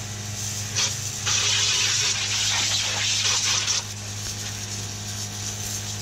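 Small electric motorbike-washer pump motor humming steadily while water hisses from its spray gun nozzle; the spray is loudest from about a second in until nearly four seconds in.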